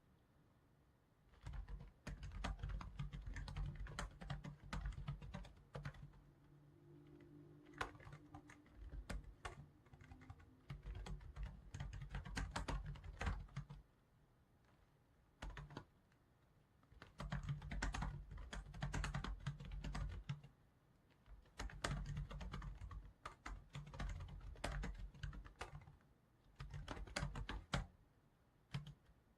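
Typing on a computer keyboard in runs of rapid key clicks, a few seconds each, broken by short pauses.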